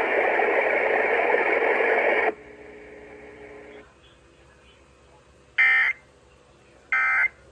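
Weather radio receiver hissing with static, which cuts off about two seconds in. About two seconds later come two short, evenly spaced bursts of warbling data tone: the Emergency Alert System end-of-message code that closes the weekly test.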